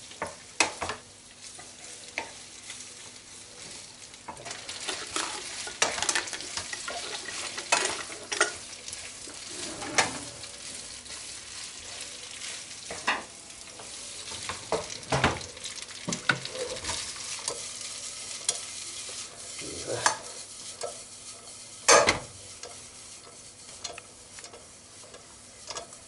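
Pasta sizzling in olive oil in a frying pan as it is stirred and tossed with a spatula, with a steady hiss and irregular scrapes and knocks of the spatula against the pan. The loudest knock comes about 22 seconds in.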